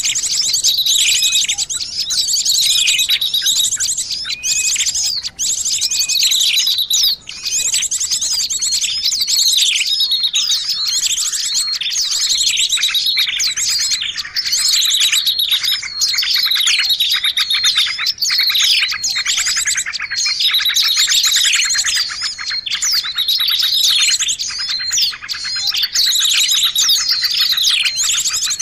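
Dense, unbroken chorus of small songbirds: many overlapping high chirps, rapid trills and short falling notes layered together, a bird-lure recording mixing the calls of several small bird species.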